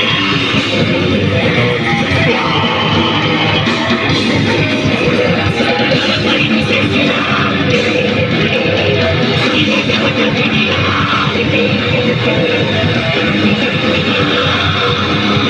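Loud heavy rock music with electric guitar, dense and unbroken.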